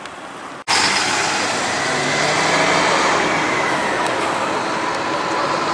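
Iyotetsu Type 50 streetcar approaching the stop along street track, mixed with road traffic noise. A faint whine, typical of its nose-suspended traction motors, rises and then falls as it comes in.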